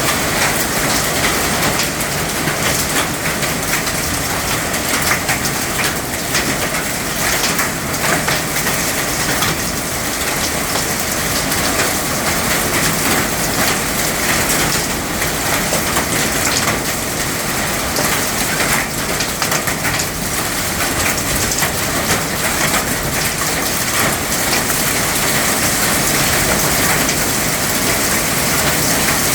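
Heavy rain pelting down as a dense, steady hiss with many small hits.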